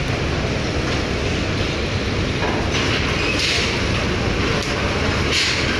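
Steady low rumble of a car ferry's engines, heard on deck, mixed with wind on the microphone, which rises in a couple of brief hissy gusts.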